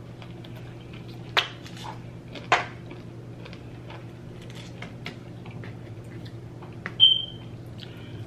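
Metal fork and food clinking against an aluminium sheet pan, with two sharp clinks in the first few seconds and scattered smaller clicks of eating and handling; near the end a louder clink rings briefly. A steady low hum runs underneath.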